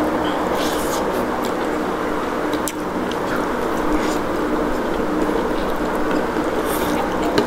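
A steady mechanical hum with a few steady pitched tones in it, broken by scattered faint clicks of someone eating.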